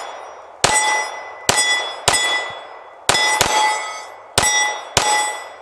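Seven shots from a Stoeger STR9C 9mm pistol, one about every half second to a second with one quick pair, each followed by the ringing clang of a hit steel gong target.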